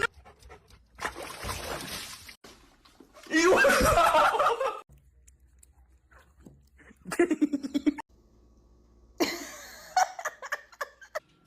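People laughing in several short bursts with pauses between, mixed with brief noisy sounds.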